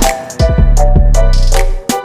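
Background hip hop music with a heavy bass and drum beat and synth melody lines.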